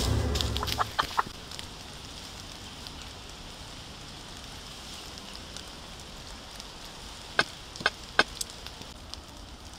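Hatchet chopping into a thin tree trunk: four sharp strikes in quick succession near the end, over a faint steady hiss, after a few lighter knocks about a second in.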